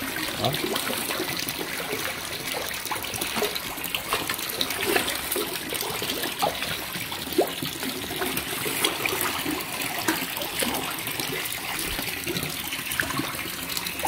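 Water splashing and trickling steadily as a crowd of catfish churn at the pond surface, with many small splashes.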